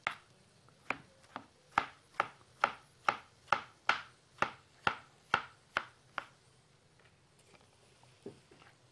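Knife slicing through a tomato onto a plastic cutting board: a steady run of about a dozen cuts, roughly two a second, each ending in a sharp knock of the blade on the board, then a few faint taps near the end as the slices are gathered.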